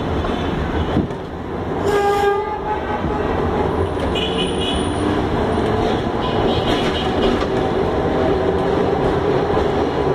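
Electric tram running along the track, heard from the driver's cab: a continuous rumble and rattle of the car, with a steady hum joining about four seconds in. A short horn toot sounds about two seconds in, and a higher tooting sound follows around four seconds in.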